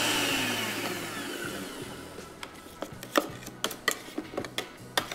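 Electric blender grinding a thick green chutney, its motor winding down and falling in pitch over the first second or two. Then a string of sharp, irregular clicks and knocks.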